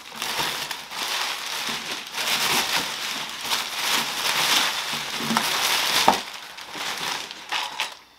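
Crumpled kraft packing paper crinkling and rustling as handfuls of it are pulled out of a cardboard shipping box. The noise stops just before the end.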